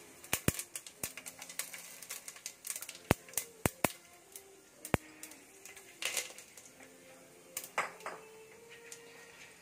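Whole spices crackling in hot oil in a pressure cooker: sharp, irregular pops and clicks, with a couple of short hisses of sizzling a little past the middle and near the end.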